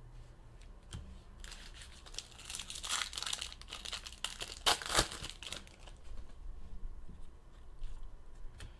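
A trading-card pack wrapper being torn open and crinkled. The crackling rustle comes in a run through the middle, loudest about five seconds in.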